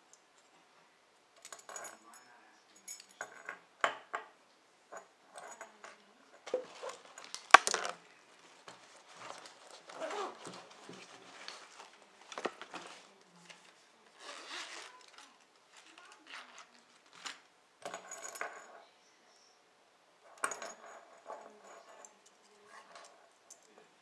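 Keys jangling on a padlock's key ring and small steel lock-picking tools clinking and clacking as they are handled and set down on a wooden table, in scattered bursts of rattles and clicks. One sharp knock about a third of the way through is the loudest.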